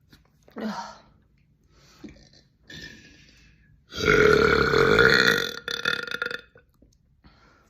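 A young woman burping: one long, loud burp about four seconds in that lasts about a second and a half, after a few short, faint sounds.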